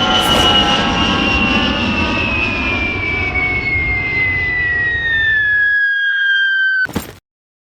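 Sound effect of a fast vehicle passing: a steady rushing noise with a high, jet-like whine that falls slowly in pitch. It cuts off abruptly about seven seconds in, followed by a brief burst of noise and then silence.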